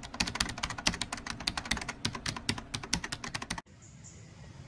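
Computer keyboard typing sound effect: a fast run of clicks that stops abruptly about three and a half seconds in, giving way to faint outdoor ambience with a few high chirps.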